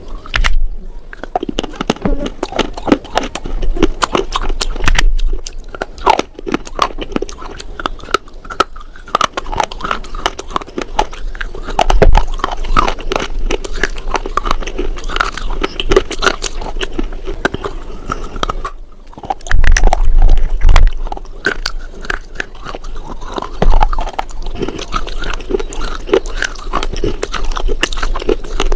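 A person biting and chewing slate, close-miked: a continuous run of sharp, brittle crunches. A few heavy low thumps stand out among them, the loudest about twelve seconds in and again near twenty seconds.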